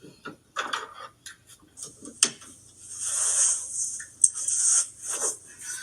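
Small objects being handled: a run of sharp clicks and taps, then about two seconds of scraping rustle with another click in the middle.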